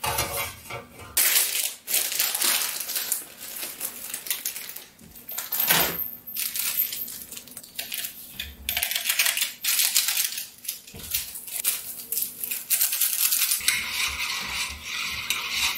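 Plastic ramen soup sachets crinkling and tearing open, with scattered clicks and clinks of metal chopsticks against a metal pot as the soup is stirred. A steady hiss sets in near the end.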